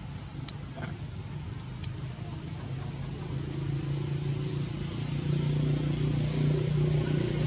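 Low, steady engine hum of a motor vehicle that grows louder through the second half, as if drawing closer. A few short high chirps in the first couple of seconds.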